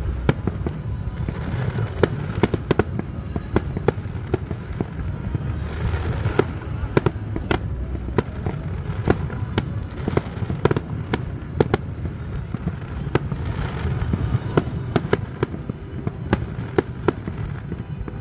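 Fireworks display: an irregular, rapid series of sharp bangs, several a second at times, over a steady low rumble.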